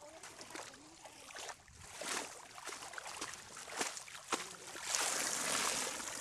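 Muddy shallow water splashing and trickling as bamboo fishing baskets are worked through it, with scattered small splashes and a louder rush of water about five seconds in.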